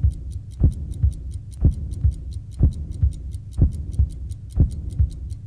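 Suspense title-sequence soundtrack: a deep thump about once a second under fast, light ticking of about four ticks a second, like a countdown clock.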